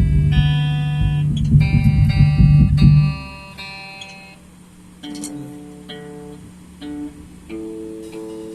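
Instrumental guitar music: sustained chords over a loud low pulsing for about three seconds, then it drops to a softer line of single plucked notes.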